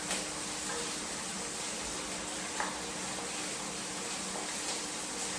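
Chopped onions sautéing in olive oil in a pan, a steady sizzle with a couple of faint ticks.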